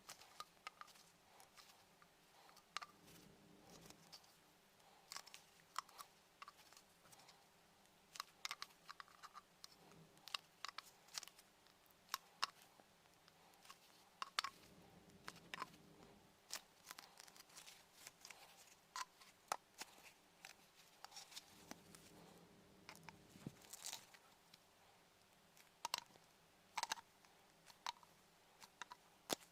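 Irregular small clicks, taps and scrapes of hands working with tools and parts, over a faint steady hum.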